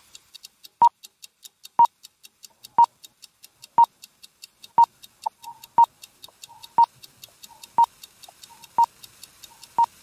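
Countdown timer sound effect: a short, loud electronic beep once a second, one for each number from ten down to zero, over a faster, fainter high ticking.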